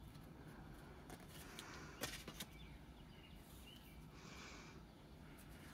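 Near silence with the faint handling of a stack of paper postcards: a couple of light clicks about two seconds in and a brief slide of card against card a little past four seconds.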